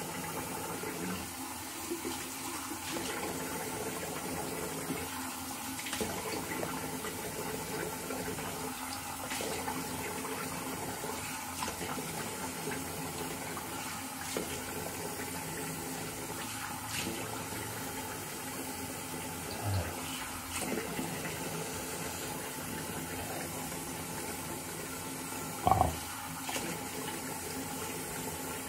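Tap water running steadily into a sink, with faint short sounds every couple of seconds and one brief louder knock near the end.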